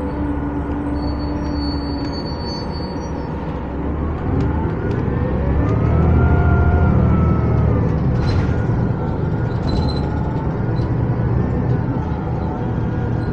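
Cummins ISL 9.8 diesel and Allison B500R six-speed automatic of a 2011 New Flyer D60LFR articulated bus, heard from inside the cabin while driving. The engine runs with a steady low rumble, and a drivetrain whine rises in pitch about four seconds in, gets louder, then falls away again. There are a few short clicks a few seconds later.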